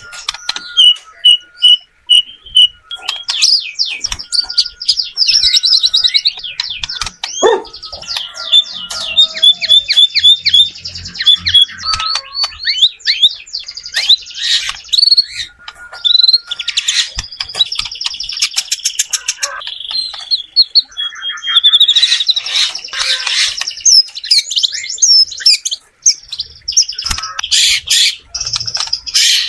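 White-rumped shama singing a long, varied song: clear whistles, rapid trills and chattering phrases following one another with short pauses.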